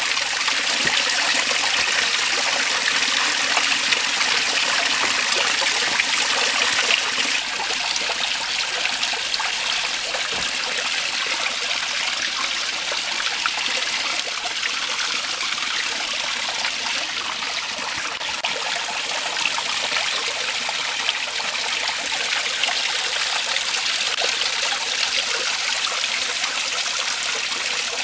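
Small creek water trickling and splashing over a tree root into a shallow pool: a steady, even rush of running water that drops slightly in loudness about seven seconds in.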